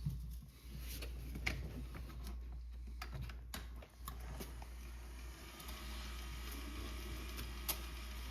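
Bambu Lab AMS lite filament feeder working quietly: scattered light clicks of filament and spool handling, with a faint steady motor whir from about halfway as it draws filament through the tube.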